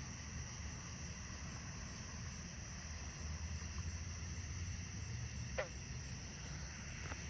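Steady night chorus of crickets, a continuous high trill, over a low rumble of distant road traffic. A single short falling squeak comes about five and a half seconds in.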